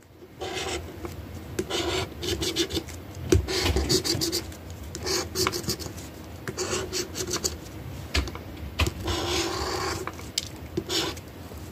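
Scraping strokes on the coating of a scratch-off lottery ticket, coming in quick bursts with short pauses between them.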